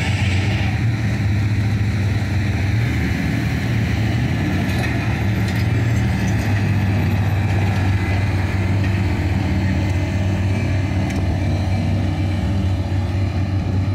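Large engine running steadily at a low, even pitch.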